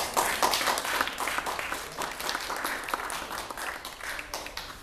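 Audience applauding, a dense patter of clapping that is loudest at the start and thins out and dies away near the end.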